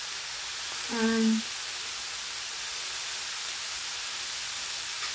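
Food frying in a pan, a steady even sizzle, with one short hummed 'mm' from a woman about a second in.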